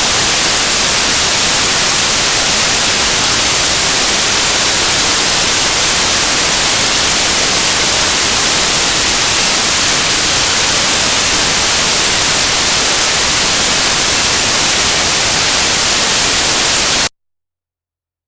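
Raw binary data played back as audio: a loud, steady hiss like white noise, brightest in the treble. It cuts off suddenly about a second before the end.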